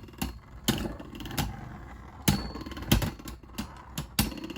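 Two Beyblade Burst spinning tops, one left-spin and one right-spin, whirring in a plastic stadium and clacking into each other with several sharp, irregular hits.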